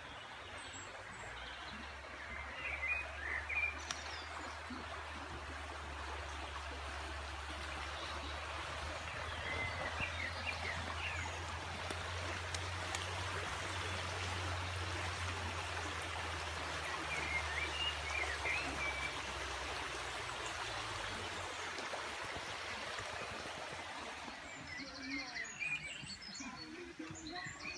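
Shallow woodland river running over stones, a steady rush of water, with birds chirping now and then.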